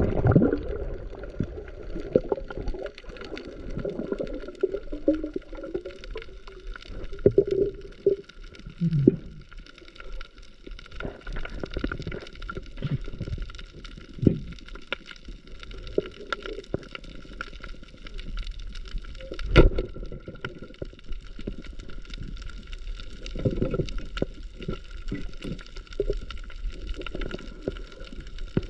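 Sea water sloshing and gurgling around an action camera, muffled, with irregular knocks and a sharp click about two-thirds of the way in, over a faint steady high whine.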